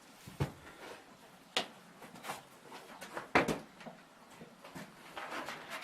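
A few short, sharp knocks, about three of them spread over several seconds, with faint clattering near the end.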